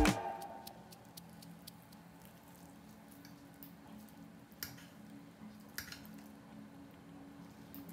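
Fork pulling apart a tender baked chicken thigh on a ceramic plate: faint soft squishing of the meat with small scattered clicks, and two sharper clicks about a second apart a little past the middle.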